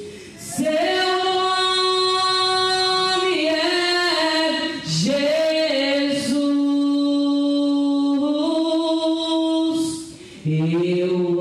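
A woman singing a slow Portuguese worship song unaccompanied into a microphone, holding long notes and sliding between them, with short pauses for breath near the start and about ten seconds in.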